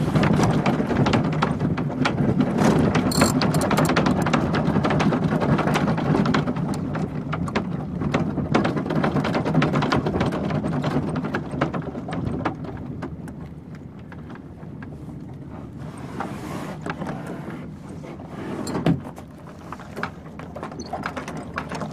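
Class 3 land yacht rolling on rough concrete: hard wheels rumbling and the frame rattling with many small clicks, dying down about halfway through as the yacht slows to a stop. A single thump comes near the end.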